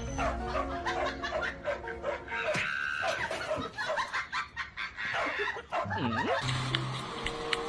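A person laughing in short repeated bursts.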